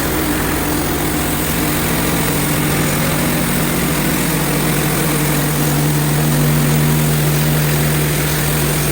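Portable bandsaw sawmill's gasoline engine running at a steady speed, a constant hum over a wide rushing noise.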